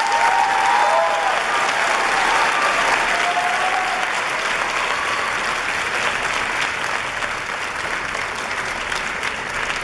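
Audience applauding steadily, with a few voices cheering over the clapping in the first seconds and again around the middle.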